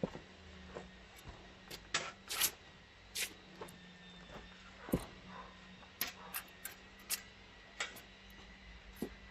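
Irregular sharp clicks and knocks of hand-tool masonry work, more than a dozen spread unevenly, over a faint steady hum.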